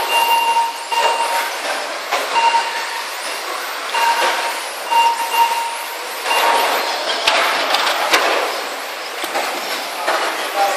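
Electric 1/10 RC touring cars racing on a carpet track: a continuous whir of motors and tyres, with a steady electronic beep that sounds on and off many times. A few sharp knocks come about seven to eight seconds in.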